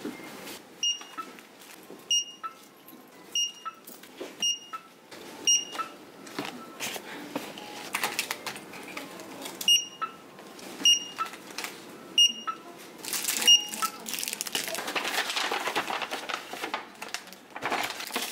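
Handheld barcode scanner at a shop till beeping as items are scanned one by one: about fourteen short high beeps, each followed by a lower blip, spaced half a second to a few seconds apart. In the last few seconds, shopping bags and wrapped goods rustle as the purchase is packed.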